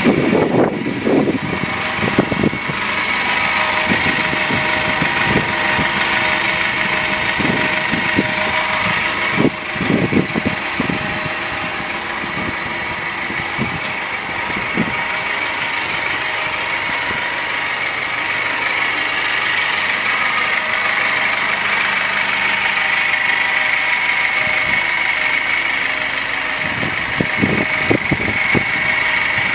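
2013 GAZelle Next truck's engine idling steadily with a steady high-pitched whine through it. A few short thumps come near the start, around ten seconds in, and near the end.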